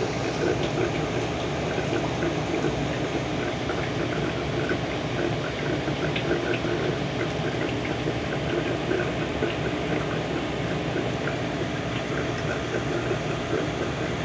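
Aquarium water running steadily with a constant bubbling, gurgling trickle, as from the tank's filter circulating the water.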